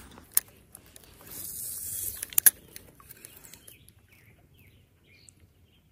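Spinning fishing reel working through a cast and retrieve: a sharp click, a brief hiss of line, a quick pair of sharp clicks about two and a half seconds in, then faint clicking of the reel as it is cranked.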